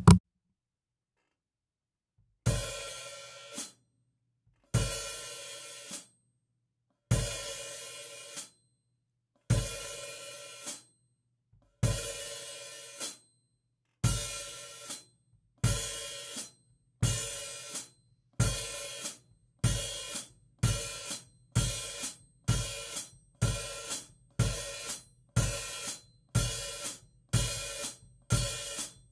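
Drum kit hi-hat barks: the hi-hat is opened together with a bass drum hit, rings for a moment, then is snapped shut with the foot pedal, cutting the ring off sharply. The strokes start about two and a half seconds in, a little over two seconds apart, then come faster and faster until they are under a second apart near the end.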